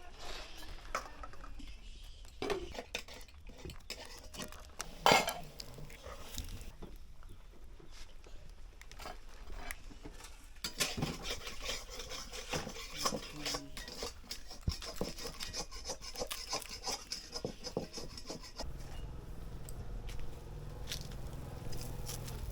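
Metal utensils clinking and scraping against dishes, in scattered irregular strokes, with one sharper knock about five seconds in.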